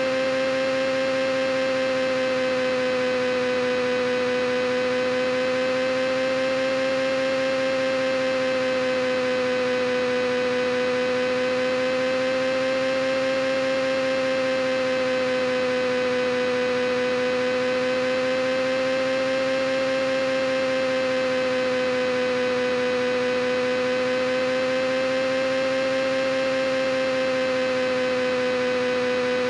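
A steady droning hum with one strong pitch and many overtones, its pitch wavering slightly up and down every six or seven seconds.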